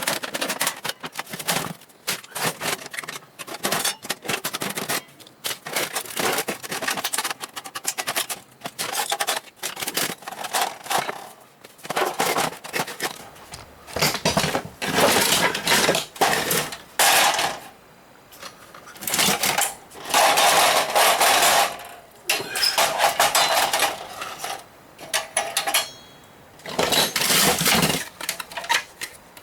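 Metal parts of a desktop computer tower clattering and scraping as it is dismantled: quick clicks and clinks throughout, with several louder stretches of continuous scraping noise a second or two long in the second half.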